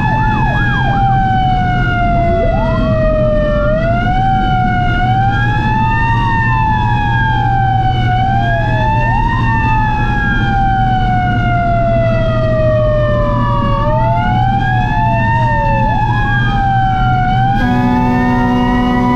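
Several fire truck sirens wailing at once, each rising and falling in slow cycles of a few seconds and overlapping one another, over steady engine and road noise. Near the end a steady horn blast of several held tones joins in.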